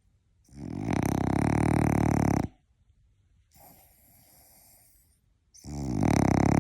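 Sleeping French bulldog snoring: two long, loud, buzzing snores of about two seconds each, with a quieter breath between them.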